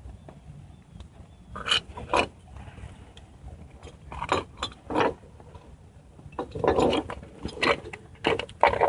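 A string of about nine sharp metallic taps at uneven spacing, as the pinion bearing is driven and seated in a Dana 30 front axle housing.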